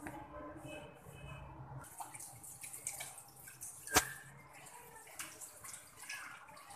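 Faint scattered clicks and taps over a soft hiss, with one sharp click about four seconds in.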